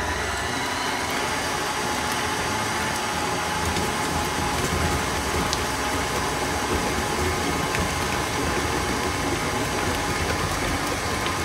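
KitchenAid Artisan tilt-head stand mixer running at a low speed with a steady motor hum and a faint steady whine, its flat beater churning eggs, sugar, oil and whole bananas into banana-bread batter in the steel bowl.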